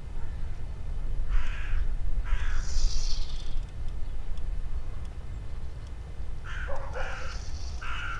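Crows cawing: a couple of short caws about a second in, then a quicker run of caws near the end, over a steady low rumble.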